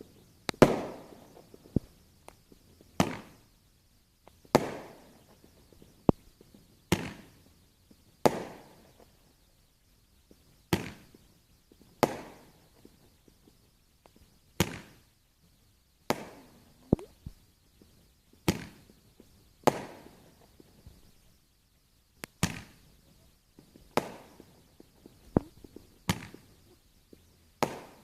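Fireworks going off one after another, a sharp bang every one to two seconds at an uneven pace, each trailing off in a short echo.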